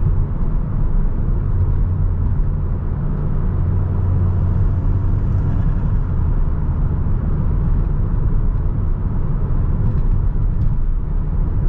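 Audi S3 8V's turbocharged 2.0-litre four-cylinder on a Stage 2 tune, with aftermarket intake, turbo inlet and downpipe, pulling the car along at a steady pace: a low, even engine drone mixed with road noise. The drone eases slightly after about six seconds.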